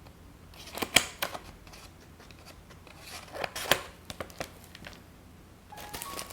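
Handmade paper blind bag being handled and opened: two short bouts of crisp paper crinkling and snapping, about a second in and again around three to four seconds in.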